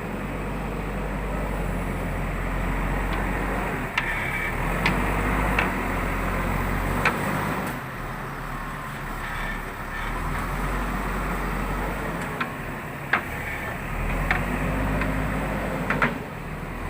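JCB backhoe loader's diesel engine working under load, swelling and easing every few seconds as the machine works, with scattered sharp knocks from the digging and loading.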